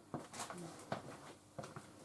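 Scattered light clicks and taps, about five in two seconds, from small parts and tools being handled at a metal lathe, with no cutting noise.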